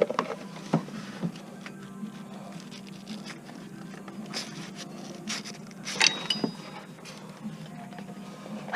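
Scattered clicks and knocks of a serpentine belt and hands working around an engine's pulleys while the belt is fed into place, over a steady low hum. The sharpest knocks come at the very start and about six seconds in.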